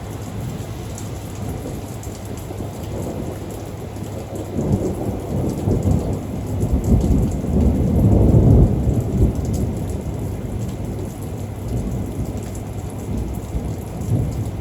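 Thunderstorm: steady rain with a long roll of thunder that swells about four seconds in, peaks near the middle and rumbles away a few seconds later.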